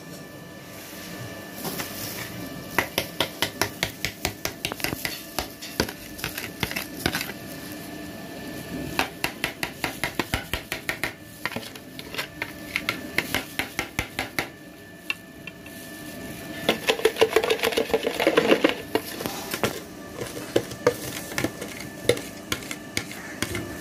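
Spoon scraping and tapping against a dish in repeated runs of quick strokes while roasted semolina (rava) is scooped and stirred. The loudest run comes about two-thirds through.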